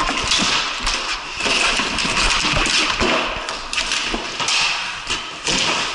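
Hockey play on a concrete floor: a steady scraping hiss of sticks and feet on the concrete, broken by sharp knocks of stick, ball or puck roughly every second.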